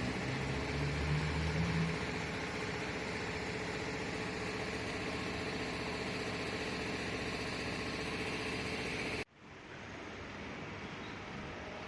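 A machine running steadily with a noisy hum and a faint whine, louder and deeper for the first two seconds. About nine seconds in it cuts off abruptly, leaving a quieter hiss.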